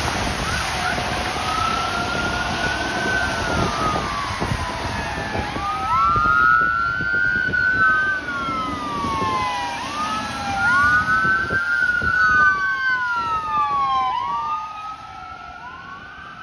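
Ambulance siren in wail mode: a quick rise and a slow fall about every four seconds, with a second wail overlapping it from about six seconds in. The hiss of tyres on the wet road runs underneath and is loudest at the start.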